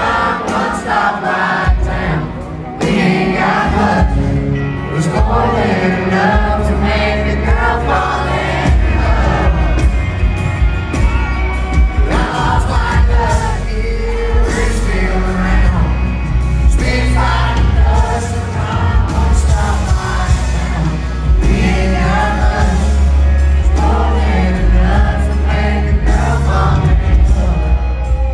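Live country rock band playing, with acoustic guitar and bass guitar, a male lead singer and crowd noise; the low end is heavy and steady.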